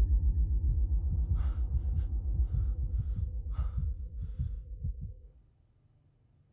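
Film sound design: a rapid, low heartbeat-like throb with a series of short breaths from inside a spacesuit helmet over it, all fading out to near silence about a second before the end.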